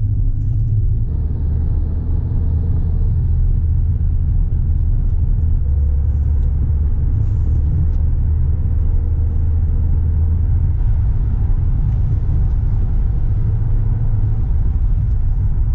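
Steady low rumble of a car driving along the road, heard from inside the cabin: engine and road noise.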